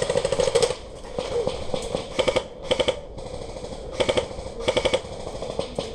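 Airsoft gun firing short full-auto bursts: a burst at the start, then four quick bursts in two pairs, about two and four seconds in.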